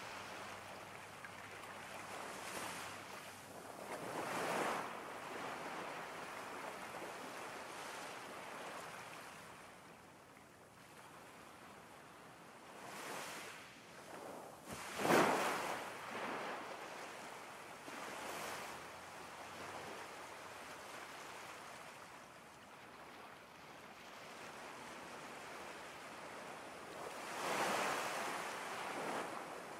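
Ocean surf: a steady rush of water with three waves swelling and breaking, about ten to twelve seconds apart, the loudest about halfway through.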